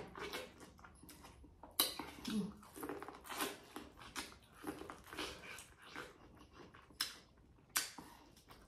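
A person chewing and smacking close to the microphone, with irregular wet clicks and a few louder smacks.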